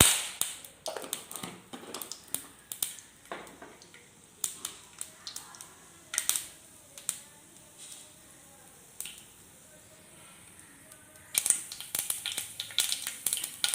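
Mustard seeds popping and spluttering in hot coconut oil in a pan: irregular sharp crackles, busy at first, thinning out through the middle, then a dense new flurry near the end. The popping is the sign that the oil is hot enough and the tempering has taken.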